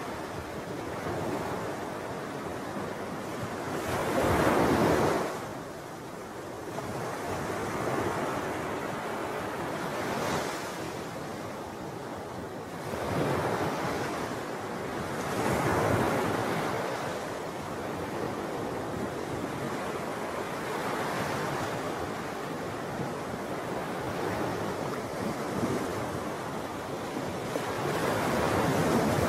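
Wind and small waves washing at the edge of a shallow saline lake: a steady rushing noise that swells into louder surges every few seconds.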